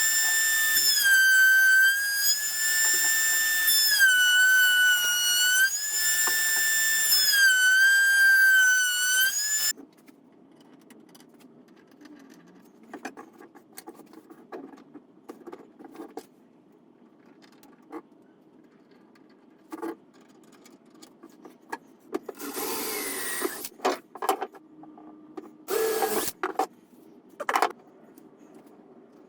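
Router with a round-over bit running at a high whine, its pitch dipping repeatedly as it bites into the timber edges and recovering between passes; it cuts off suddenly about ten seconds in. After that come quieter knocks and clicks of wood and tool being handled, with two short noisy bursts near the end.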